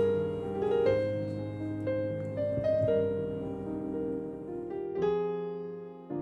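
Background piano music: a slow melody of held notes changing about once a second.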